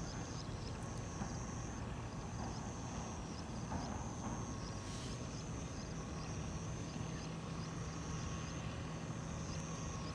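Outdoor background: a steady low rumble under a high-pitched chirping call that repeats in spells of about a second. A faint low hum joins about six seconds in.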